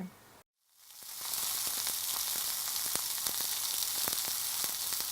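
Meat searing on a very hot grill: a steady sizzle with scattered small pops and crackles, fading in about a second in after a brief silence.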